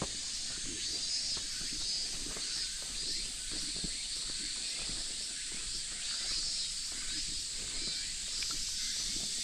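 Steady chorus of cicadas, a high hiss that swells and fades every second or so, with scattered soft footsteps on gravel.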